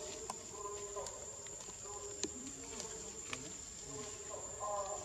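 A steady, high-pitched drone of insects, with a few sharp clicks and rustles from a monkey moving through leafy undergrowth.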